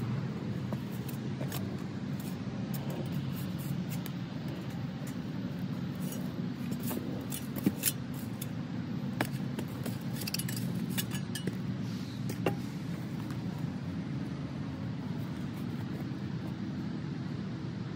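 A shovel scraping and digging into dry garden soil, with a few sharp clinks as the blade strikes stones or the bed's edge, mostly in the middle. Under it runs a steady low background rumble.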